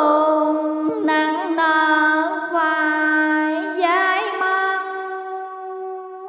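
A solo voice chanting Hòa Hảo teaching verse in the drawn-out sung recitation style, holding one long vowel with small wavering turns in pitch and fading near the end.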